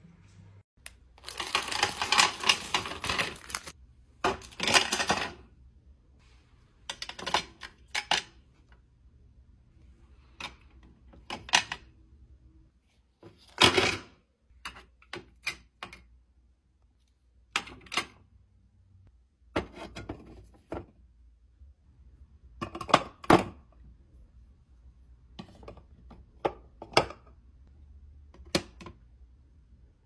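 Office supplies being set into clear hard-plastic drawer organizers: a few seconds of continuous rattling clatter about a second in, then a string of separate clacks and clicks as pens, markers and tape rolls knock against the plastic trays.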